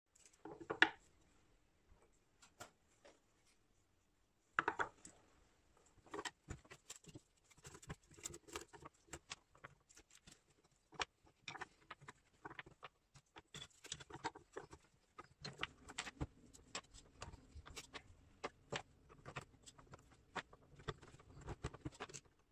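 Small hardwood offcuts clacking and knocking as they are handled and dropped one by one into a wooden box. The knocks are sparse at first, with two louder ones in the first five seconds, then come thick and fast.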